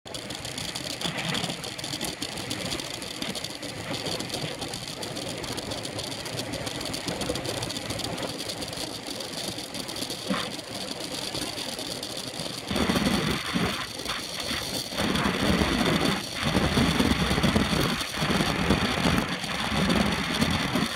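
Wind rushing over a bike-mounted camera's microphone with road and tyre noise, riding in a pro cycling peloton. It grows louder and gustier about two-thirds of the way through, with brief drop-outs.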